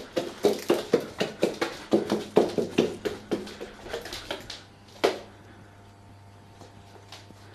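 White domestic duck quacking in a fast run, about three to four short quacks a second, which stops about four and a half seconds in, with one last quack about five seconds in.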